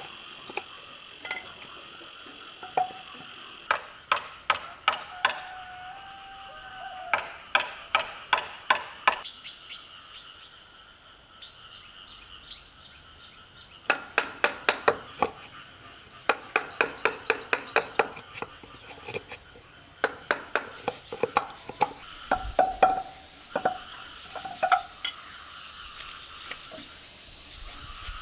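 Wooden mallet driving a wood-handled chisel into a hardwood rail to cut a mortise: runs of sharp knocks, about four or five a second, with short pauses between runs.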